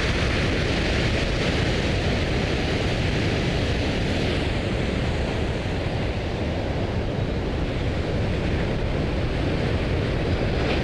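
Rough sea's waves breaking against coastal rocks, a steady unbroken wash of noise, with wind buffeting the microphone.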